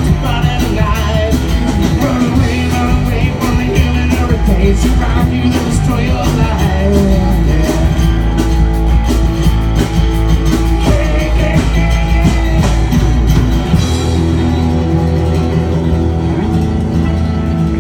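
Live rock band playing an instrumental passage: electric guitar lines over bass and a drum kit. About fourteen seconds in the drums stop and held chords ring on.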